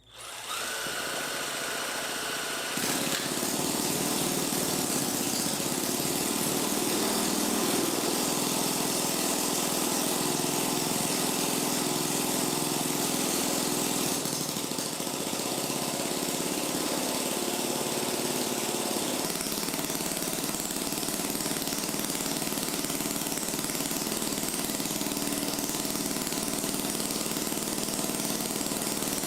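Electric arc from a homemade welding machine, buzzing and crackling steadily, struck suddenly at the start and held without a break.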